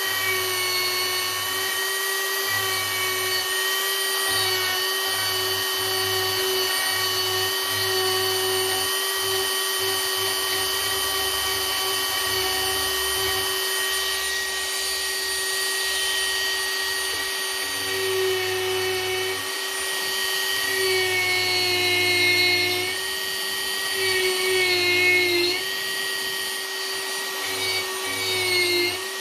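Dremel rotary tool running at high speed with a steady whine as its bit carves wood, the pitch dipping briefly a few times in the second half as the bit is pressed harder into the wood.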